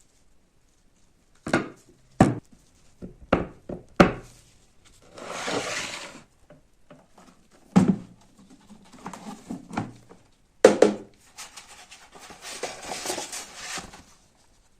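Hand work on the parts of a rusty cutting machine: several sharp knocks of parts being set down or tapped, with stretches of scraping or rubbing in between, the longest near the end.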